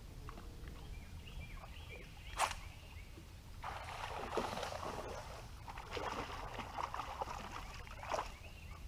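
A hooked bass splashing at the water's surface beside a boat for about four seconds. A sharp knock comes shortly before the splashing starts and another near the end.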